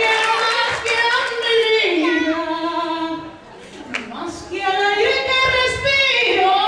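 A woman singing solo through a microphone and PA, holding long notes with vibrato and no accompaniment heard, with a short breath pause about halfway through.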